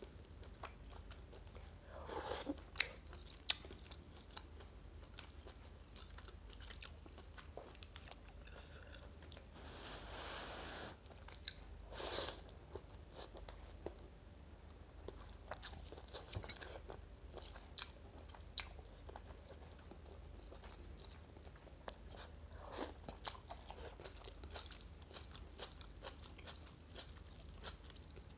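Close-miked eating of rice vermicelli soup with shredded chicken: soft chewing and mouth sounds with scattered small clicks, and one longer airy sound about ten seconds in.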